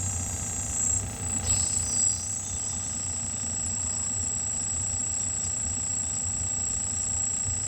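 Air compressor running steadily, filling a tire bead-seater tank to build up pressure, with a low hum and a constant high whine. A brief clatter comes about one and a half seconds in.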